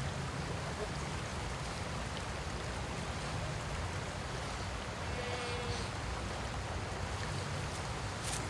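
Steady rushing outdoor ambience with a low rumble, with a brief faint call about five seconds in.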